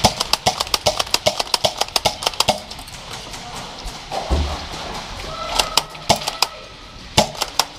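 Airsoft guns firing on full auto: a rapid string of sharp cracks, about seven a second, for the first two and a half seconds, then shorter bursts near the middle and near the end.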